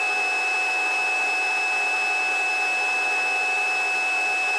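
Helicopter in flight: a steady, even whirring with a constant high whine from the cabin.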